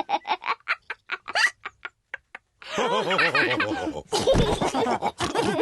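Cartoon pig characters laughing with snorting pig laughs. A run of quick laughs fades out over the first two seconds, then after a short pause the group bursts into laughter again.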